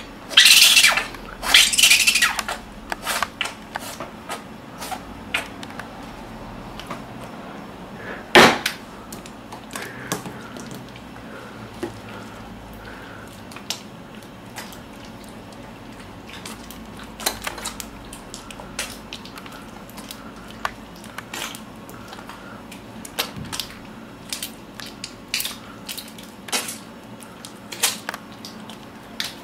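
Hands coated in thick white cream rubbing and squeezing together, making irregular short wet clicks and smacks. A louder cluster comes in the first couple of seconds and one sharp smack about eight seconds in.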